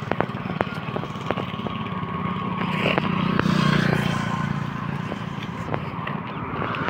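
Road traffic: a motor vehicle's engine hum that swells about halfway through, then a car approaching and growing louder near the end. Scattered sharp clicks in the first couple of seconds.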